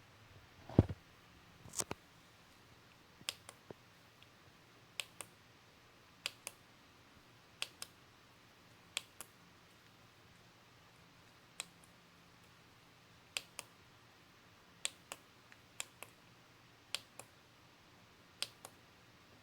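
Sharp clicks, mostly in pairs a fraction of a second apart, repeating about every one and a half seconds, with a low thump about a second in.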